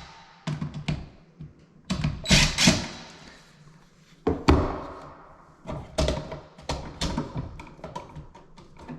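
Irregular knocks, taps and clunks from handling tools and a GFCI outlet in its wall box while its wiring is reworked, some coming in quick clusters of two or three.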